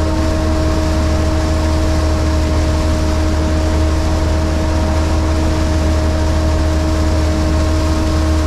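Sherp amphibious ATV's diesel engine running steadily as the vehicle swims, a low drone with a steady whine above it, over the churning of water at the wheels.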